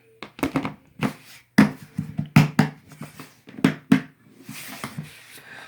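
Things being handled and set or dropped into a container: a quick run of about a dozen sharp knocks and thumps, then a brief rustling hiss near the end.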